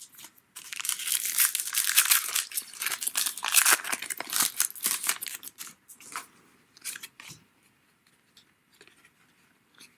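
A trading-card pack wrapper being torn open and crinkled for about five seconds, then a few light ticks as the cards are handled.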